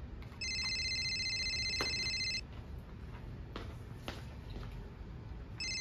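A cell phone ringtone trilling: one ring of about two seconds, a pause, then a second ring starting near the end. A few light clinks of a spoon and dishes fall between the rings.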